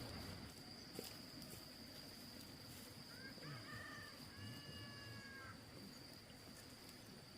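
A rooster crows once, faintly, from about three seconds in for roughly two seconds, over a steady high-pitched insect trill.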